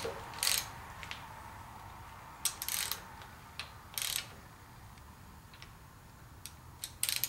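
Hand socket ratchet clicking in a few short spurts as it turns a rocker arm adjusting nut on a Chevy 350 small-block, setting the valve lash.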